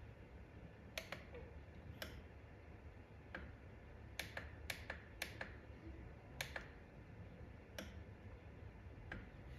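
Push buttons on an automatic chicken coop door's control panel clicking under a fingertip: about a dozen sharp, irregular clicks, several coming in quick pairs.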